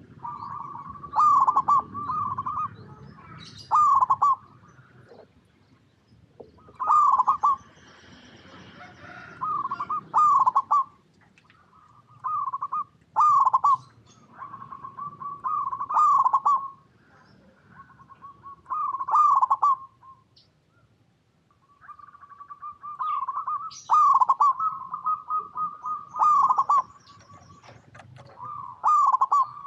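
Zebra dove (perkutut) cooing: short phrases of quick staccato coo notes, repeated every one to three seconds with brief pauses.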